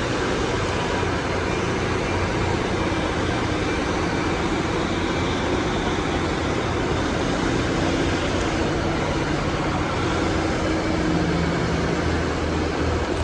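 Train at a station, a steady rumbling run with a low hum.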